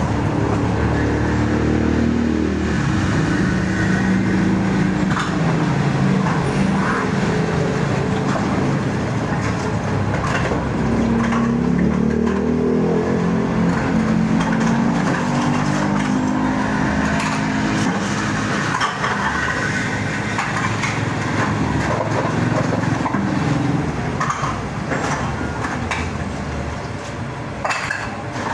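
Motor vehicle engine running under way, its pitch rising and falling as it speeds up and slows, over steady road noise.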